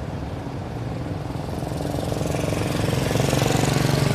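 Bus engine running, getting louder over the last two seconds.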